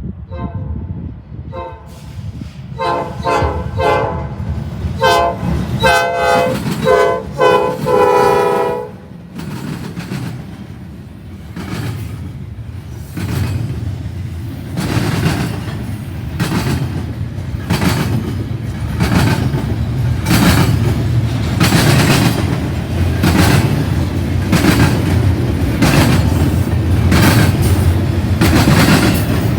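CN GE C44-9W locomotive horn sounding a rapid series of blasts, the last one the longest. After it, the eastbound intermodal train rolls past, its wheels clicking steadily over the rail joints and growing louder.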